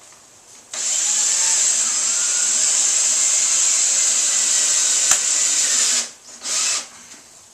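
Power drill driving a 1.5-inch screw through drywall into a wood backing strip, running steadily for about five seconds with a sharp click near the end of the run, then a brief second burst.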